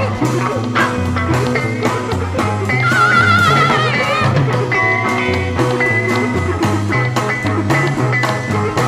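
1960s psychedelic rock band playing an instrumental passage: electric guitar, a bass line stepping between notes and a steady drum beat. A warbling high note with a fast wobble in pitch comes in about three seconds in and lasts about a second and a half.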